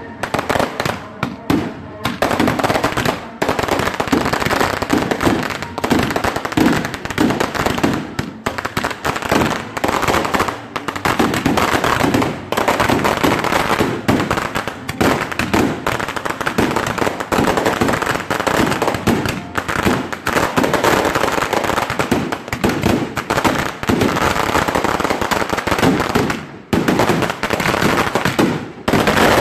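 Fireworks barrage fired from ground-launched batteries: a dense, continuous run of rapid bangs and crackles, broken by two brief lulls near the end.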